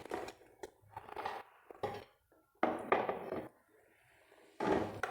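Kitchen utensils and dishes being handled, in a few irregular clattering and scraping bursts, each under a second long.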